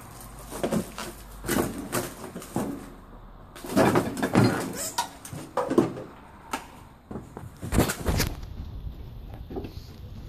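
Irregular knocks, scrapes and crunches of stepping over and disturbing scattered debris and junk on a floor, with a louder stretch of rustling and scraping in the middle and a couple of heavier knocks near the end.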